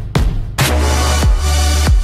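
Electronic dance music with a heavy bass line and a steady kick-drum beat; the bass drops out at the start and comes back in about half a second in.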